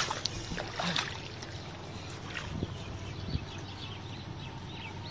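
Live catfish splashing and knocking in a plastic basin as it is lifted and carried, mostly in the first second or so, then a steady outdoor background with faint high chirps.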